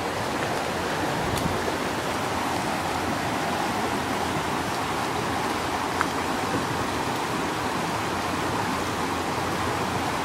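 Creek water rushing steadily over rocks, with one brief tick about six seconds in.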